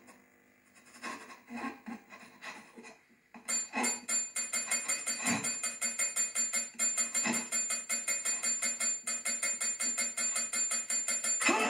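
A wheelchair-mounted call bell struck over and over with a finger: a few spaced dings, then from about three and a half seconds a fast, frantic run of dings, about five a second, with a high ring held over them. Right at the end a sudden loud blast: the pipe bomb that the bell triggers going off.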